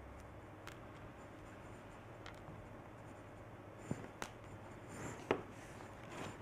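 Scattered small clicks and taps of seashells and beads being handled and set onto a grout-covered wooden frame, a handful of separate knocks with the loudest about five seconds in.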